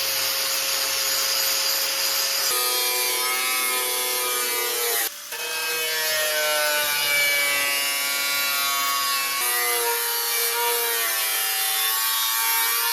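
Angle grinder working on steel body panel, a steady grinding whine whose pitch shifts with load, breaking off briefly about five seconds in.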